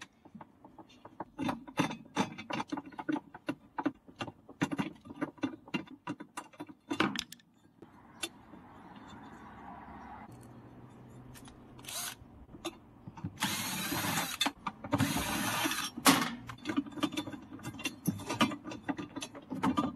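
Clicks and knocks of washing-machine parts being handled as the motor and drive belt are worked on by hand, with two loud, noisy bursts of about a second each a little past the middle.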